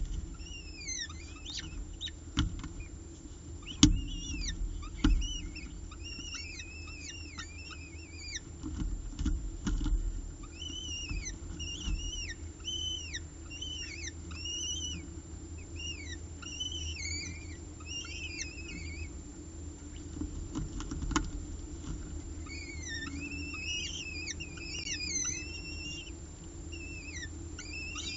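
Peregrine falcon eyases begging while being fed: a run of rapid high-pitched cheeps, several a second, that pause for a few seconds about two-thirds of the way through and then start again. A few sharp knocks, the loudest about four seconds in, over a steady low hum.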